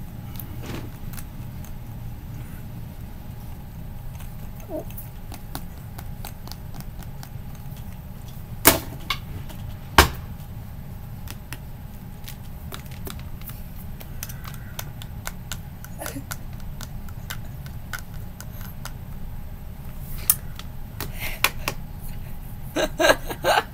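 Rubbery homemade slime being squeezed and worked by hand, giving scattered small clicks and pops, with two sharp snaps about nine and ten seconds in and a flurry of clicks near the end, over a steady low hum.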